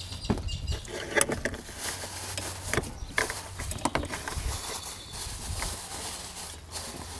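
Scattered clicks, knocks and rustles of hands working in a car's engine bay, covering parts against water.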